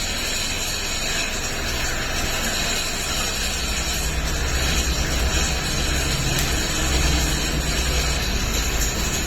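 Eicher Pro 1080 XP tipper truck running, a steady low diesel drone that grows louder from about four seconds in. It is being run so that the noise behind the truck's gearbox complaint can be heard.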